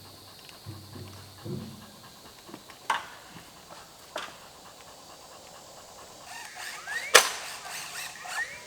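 A couple of faint sharp clicks, then one loud, sharp crack about seven seconds in.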